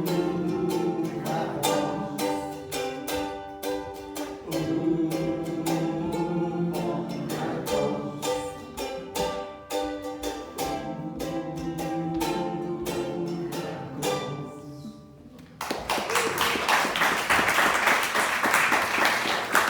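Acoustic folk song's ending, played on plucked string instruments over long held tones, fading out about fifteen seconds in. An audience then breaks into applause.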